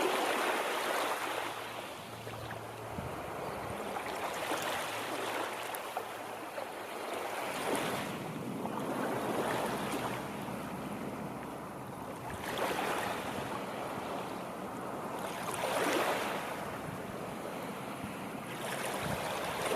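Water washing in waves, one surge swelling and falling away every three to four seconds.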